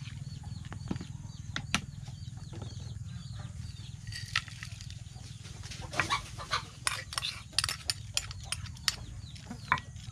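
A metal spoon clicking and scraping in a plastic bowl as a beef salad is mixed, the taps coming thickest from about six seconds in. Chickens peep and cluck in the background over a steady low hum.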